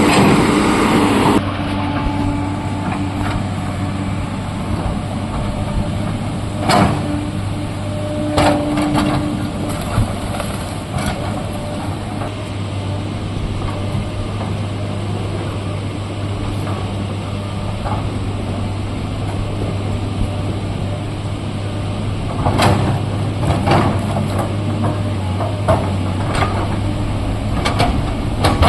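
Hitachi excavator's diesel engine running steadily, louder for the first second or so. Scattered knocks and scrapes come in a few times as the machine works at a large stone.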